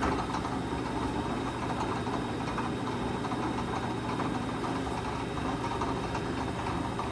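A small motor running steadily with a low hum, typical of a workshop power tool.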